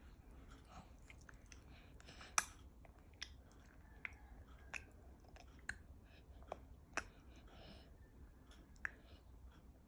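A baby chewing soft omelet. Wet mouth clicks and smacks come now and then, about eight in all, the loudest about two and a half seconds in.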